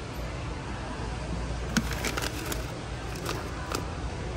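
Indoor shop background with a steady low hum, and a few short clicks and taps in the middle.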